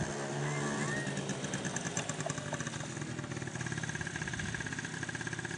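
Small motor scooter's engine running at low speed with a fast, even putter as the scooter rolls slowly up.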